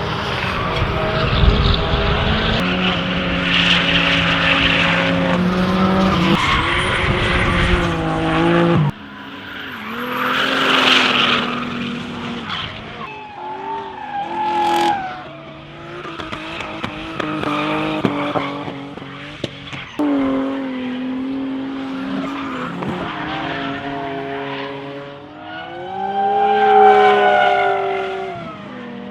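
Tuned race cars running hard on track, engines revving up and down through the gears, with tyre squeal and skidding. The sound changes abruptly about nine seconds in and again near twenty seconds, as one car's engine note gives way to another's.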